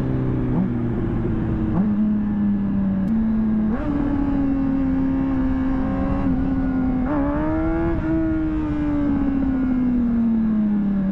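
Honda CBR600RR inline-four engine running under way, heard from the rider's position with steady wind rush. Its pitch climbs in a few steps over the first eight seconds, then falls steadily as the revs drop near the end.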